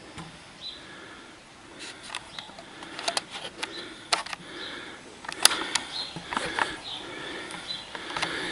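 Camera handling noise as the camera is lifted and repositioned: scattered light clicks and rustles.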